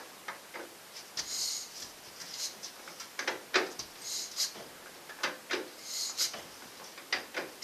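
Ford Model T four-cylinder engine being turned over by its hand crank with the choke pulled to prime it, not yet firing. Repeated clicks and clunks from the crank, often in pairs, with short hissing strokes about every one and a half to two seconds.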